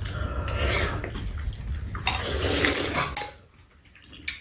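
Metal spoons and chopsticks scraping and clinking in bowls of kimchi sujebi soup, with wet slurping of the broth; a single sharp clink about three seconds in, then it goes quiet.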